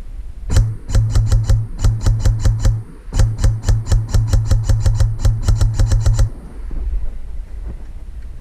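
Airsoft rifle firing rapid shots at about six a second, in two strings broken by a short pause, with a low hum under the shots.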